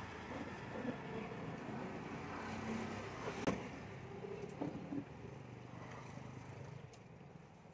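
A motor vehicle's engine running steadily and fading away near the end, with a sharp click about three and a half seconds in and a few softer clicks just after.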